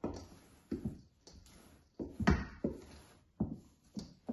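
Wooden spoon beating thick cake batter in a stainless steel mixing bowl: a series of knocks and scrapes, roughly one every half second to a second, at an uneven pace.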